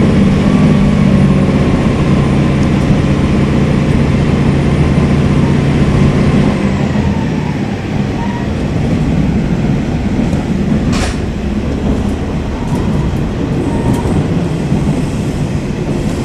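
A KiHa 47 diesel railcar running, heard from inside the car: the diesel engine's steady hum under power over the rail and running noise, until about six and a half seconds in, when the engine note falls away and the car runs on with only the wheel and rail noise. One short sharp click about two-thirds of the way through.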